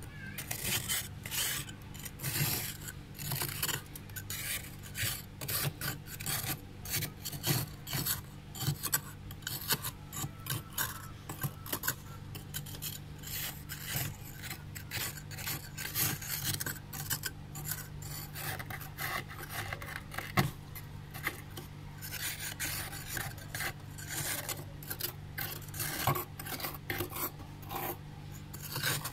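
A flat spoon scraping thick frost built up on the inside walls of a freezer, in quick, irregular rasping strokes, several a second.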